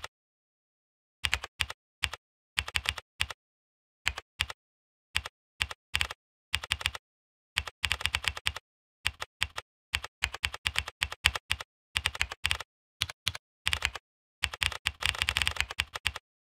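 Typing on a computer keyboard: quick runs of keystrokes in bursts with short pauses between them, a long fast run near the end, then the typing stops.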